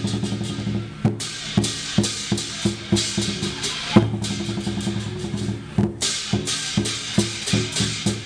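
Chinese lion dance drum beaten in a driving rhythm, about two strong booming strokes a second, with a constant bright crash of cymbals over it that breaks off briefly a couple of times.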